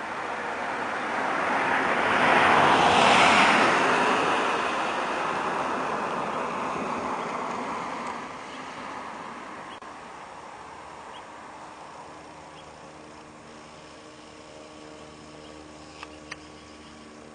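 A car passes by, its tyre and engine noise swelling to a peak about three seconds in and fading away over the next several seconds. A low steady background follows, with two short clicks near the end.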